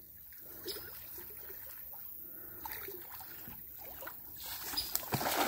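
Floodwater trickling and sloshing faintly as someone wades through it, getting louder near the end.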